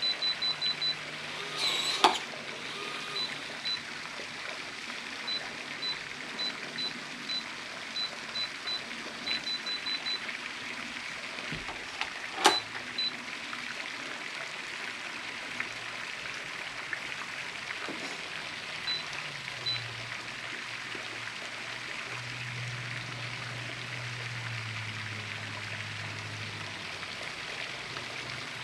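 Electronic keypad door lock beeping with each button press as a code is keyed in: a quick run of short beeps at the start, then single beeps spaced about half a second to a second apart for the next ten seconds, and a few more near the end. A sharp click about two seconds in and a louder one about twelve seconds in, over a steady background hiss.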